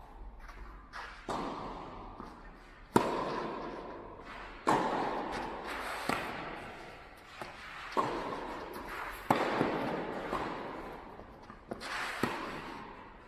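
Tennis ball struck back and forth by racquets in a rally, sharp hits about every second and a half, each ringing on in the echo of a large indoor hall.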